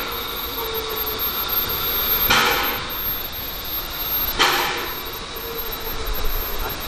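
Small steam tank locomotive standing in steam while it is pushed round on a hand-worked turntable: a steady hiss, broken by two short, loud bursts of noise about two seconds apart.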